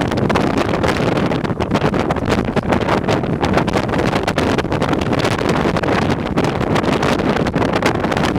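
Hurricane-force blizzard wind blowing hard and buffeting the microphone: a loud, continuous rush of noise that flickers with the gusts.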